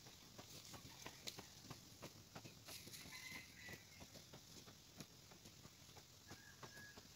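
Faint, uneven knocks of long-handled hand hoes chopping into dry tilled soil, a few strikes a second.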